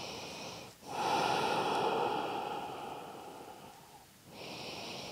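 A person breathing slowly and audibly while holding a forward fold: a short in-breath, then a longer, louder out-breath that fades away over about three seconds, then another in-breath near the end.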